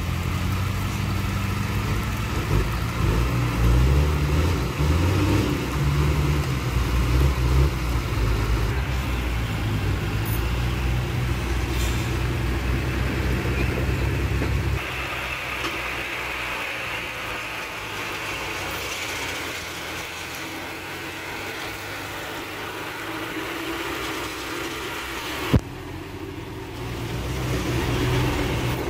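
Heavy diesel engine of earthmoving machinery running under load. The deep engine sound cuts down sharply about halfway, leaving a quieter even noise, with one sharp click a few seconds before the end.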